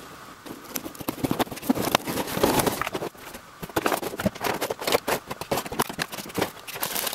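Unboxing handling noise: a cardboard box opened and its glossy black plastic packaging tray lifted out, with irregular clicks, crackles and knocks.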